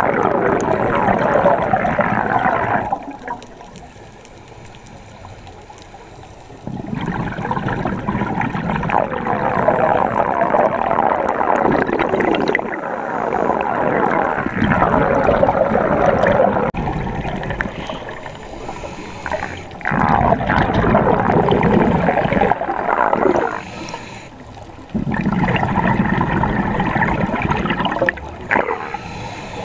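Scuba diver's exhaled breath bubbling out of the regulator underwater, in several bursts a few seconds long with quieter gaps between them as the diver breathes in.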